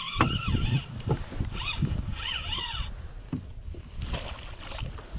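Spinning reel being cranked to bring in a hooked fish: a whirring whine that wavers in pitch with the cranking, in two spells, over dull knocks of handling in the boat.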